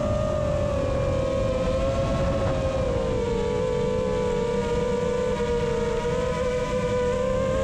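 FPV quad's T-Motor Velox 1950 kV brushless motors on 6S spinning Ethix P3 props, giving a steady high whine; the pitch sags a little about three seconds in and then climbs back slightly as the throttle changes.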